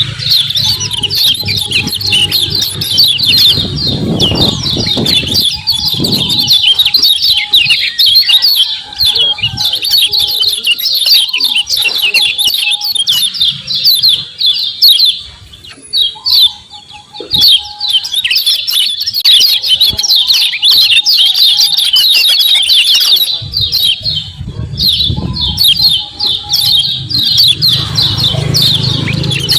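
Kecial kuning white-eyes giving fast, dense 'ciak ciak' twittering chirps. The chirps break off for a moment about halfway, then carry on.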